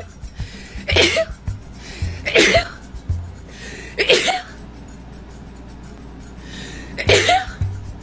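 A woman sneezing four times, each a short, loud, voiced burst, the last after a longer pause. Background music with a steady beat plays underneath.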